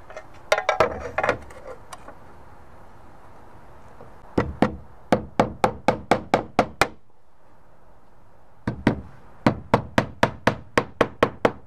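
Slater's hammer nailing a roofing slate down: a brief clatter of slate being set in place near the start, then two runs of quick, sharp hammer strikes, about four a second, of roughly ten and twelve blows.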